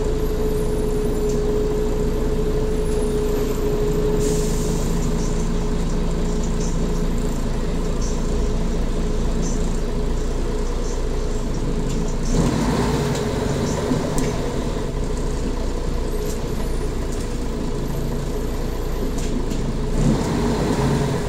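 Mercedes-Benz Citaro G articulated city bus running, heard from on board: steady engine and road noise with a whine that fades out about four seconds in, and short bursts of hiss about twelve seconds in and again near the end.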